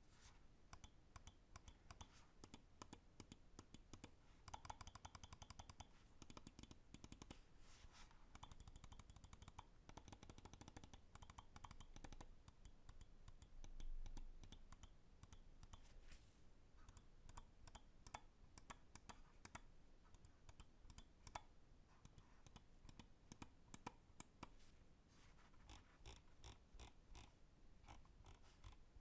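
Lamzu Maya X 8K gaming mouse buttons being clicked: sharp clicks, some single and some in rapid runs, the runs densest a few seconds in and again around ten seconds in.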